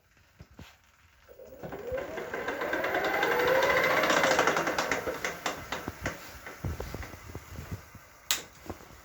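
Electric bicycle hub motor whining as the wheel spins up, then winding down, with a repeated knock from the wheel. The knocks come quickly at speed and space out as the wheel slows. The knock is the suspected fault.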